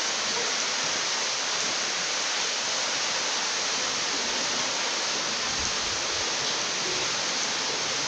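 Merdven-Tubyu waterfall pouring into the pool at the grotto mouth: a steady, even rush of falling water.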